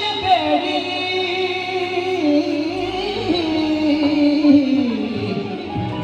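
A boy singing a Punjabi devotional song with musical accompaniment, holding one long ornamented note that wavers and slowly falls in pitch.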